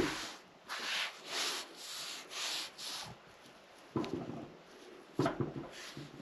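A sponge or cloth rubbing stove blacking onto the cast-iron surface of a Jötul 602 wood stove, in back-and-forth strokes about twice a second, then more lightly, with a couple of short knocks later on.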